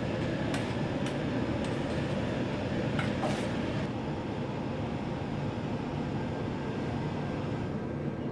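Commercial wok range running steadily with a wok of onions frying over high heat. A metal ladle clicks and scrapes against the wok several times in the first four seconds.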